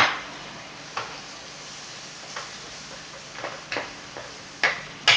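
Wooden spatula knocking and scraping against a wok while stirring spices frying in it: a string of sharp taps at uneven spacing, the loudest at the start and near the end, over a steady sizzle.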